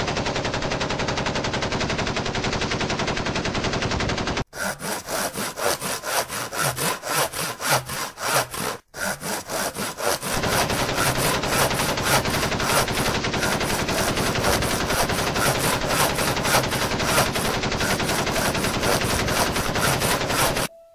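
A loud, rapid rattling sound effect: solid for about four seconds, choppier and uneven for the next several seconds with a brief break twice, then solid again until it cuts off suddenly near the end.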